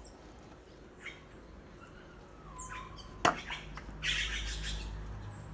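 Opossum feeding: a sharp click a little after three seconds in and about a second of crunching, rustling noise about four seconds in, among scattered short high chirps.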